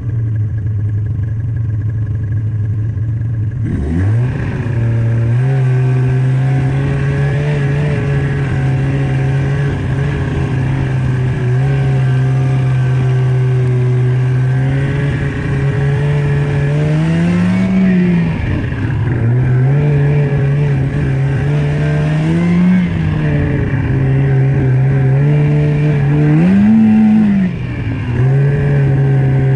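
Snowmobile engine running under way, sped up to double speed, with a steady drone that rises and falls in pitch as the throttle is opened and eased, three times in the second half. About four seconds in, the sound brightens and the pitch steps up as the machine picks up.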